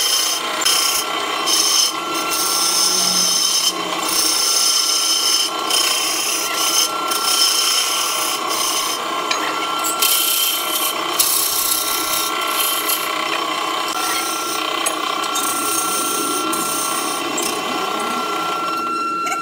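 Wood lathe turning a wooden blank while a hand-held turning tool cuts into it: a steady rasping scrape of the tool on the spinning wood, broken by several brief pauses, over a thin steady whine.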